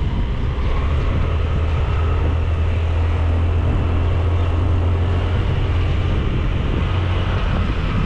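Honda Dio scooter's small single-cylinder engine running steadily under way, a constant low drone mixed with rushing wind and road noise.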